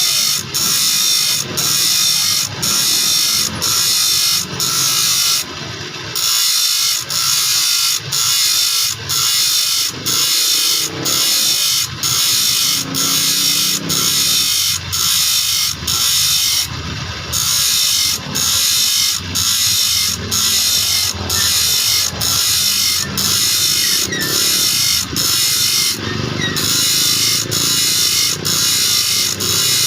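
Steel file rasping across the teeth of a saw blade, cutting new teeth, in regular strokes of about one and a half a second, with a short break between strokes and three slightly longer pauses.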